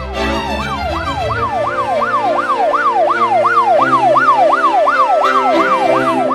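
Electronic emergency siren in a fast yelp, its pitch sweeping up and down about three times a second, coming in just after the start over sustained background music.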